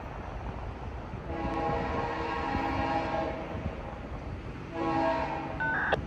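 Three-chime Leslie RS-3L locomotive air horn on the lead BNSF GE C44-9W, sounding two blasts: the first about two seconds long, the second shorter near the end.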